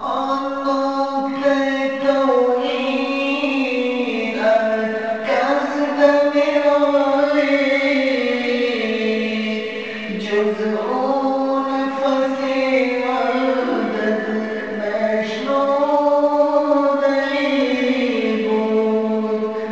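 Singing voices chanting a devotional song in long held notes, the melody stepping from one sustained tone to the next every couple of seconds.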